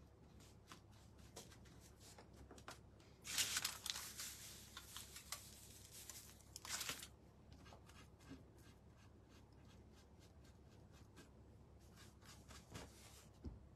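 Crumpled aluminium foil crinkling as it is picked up and handled for a few seconds, starting about three seconds in. Faint ticks and scratches of a paintbrush on the painting come before and after.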